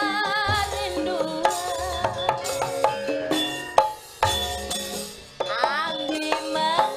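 A woman singing a Javanese song into a microphone with vibrato, over gamelan accompaniment with a steady held instrumental note and repeated hand-drum (kendang) strokes; her voice slides upward near the end.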